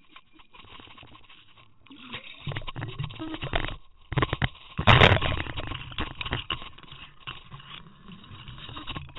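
Water rushing and splashing against an underwater action camera's housing as it is hauled up to the surface and out of the lake, with a loud sudden noise about five seconds in, followed by rubbing and knocking as the camera is handled.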